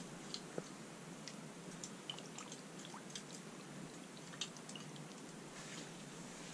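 Faint, scattered small clicks and wet squishing from raw fish pieces being handled in a metal bowl.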